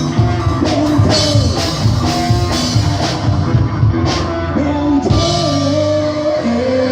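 A rock band playing live: a drum kit keeping a steady beat under guitar, with a singing voice holding and bending long notes.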